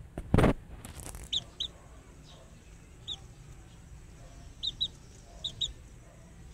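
Young Kelso gamefowl cockerels peeping: short high chirps, mostly in quick pairs, spread over several seconds. A short loud scuffing noise comes about half a second in.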